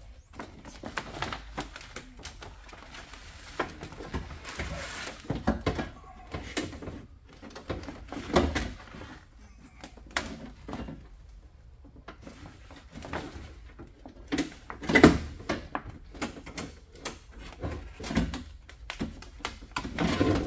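Handling noise from a power window regulator and motor assembly being worked into a pickup's door cavity: irregular knocks, clicks and scraping of metal against the door, with the plastic vapor barrier rustling. The sharpest knock comes about fifteen seconds in.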